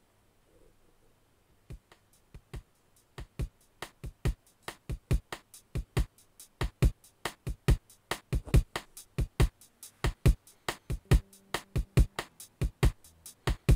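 Music intro: a percussion beat of sharp clicks at about four a second, starting after nearly two seconds of near silence, with faint held low notes entering near the end.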